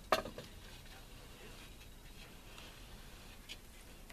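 A sharp plastic knock followed by a few quick clicks just after the start, as the domed plastic cap of a Paramount in-floor cleaning water valve is set down onto its housing; then only faint handling ticks.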